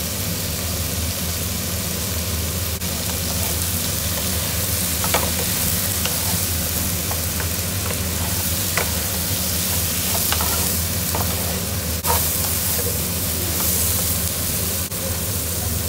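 King prawns in their shells sizzling in hot oil in a frying pan, stirred and tossed with a wooden spatula that gives a few faint knocks against the pan, over a steady low hum.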